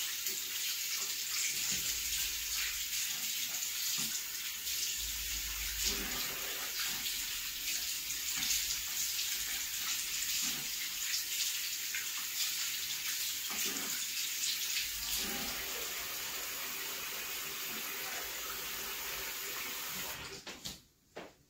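Bathroom sink tap running steadily, with water splashing as hands and face are washed under it. The tap is shut off about a second before the end.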